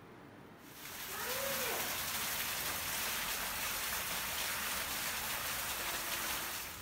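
Steady rainfall, an even hiss that begins abruptly a little under a second in.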